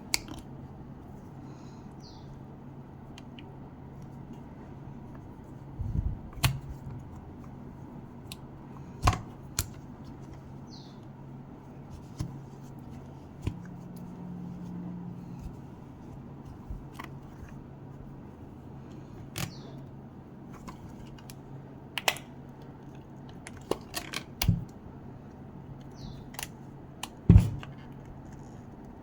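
Irregular clicks and knocks of tools and plastic parts being handled while a Bose SoundLink Color II speaker is taken apart, with a sharper knock near the end, over a steady low hum.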